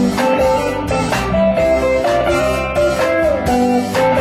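Live band playing: electric guitars over bass and drums with a steady beat, and a held melody line on top.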